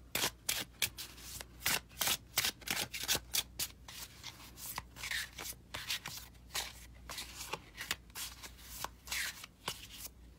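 A deck of oracle cards being shuffled by hand, overhand style: packets of cards slid and dropped from one hand into the other, giving an irregular run of quick papery slaps and riffles, a few a second.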